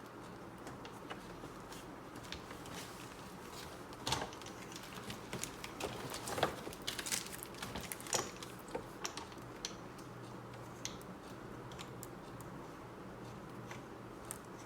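Scattered light clicks and taps of small hose fittings being handled and screwed together, busiest between about four and nine seconds in.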